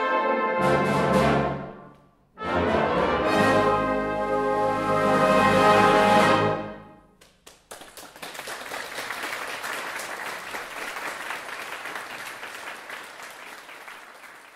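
Brass band playing the final bars: a phrase that breaks off about two seconds in, then a long, loud held final chord that dies away. Audience applause follows about seven and a half seconds in and fades near the end.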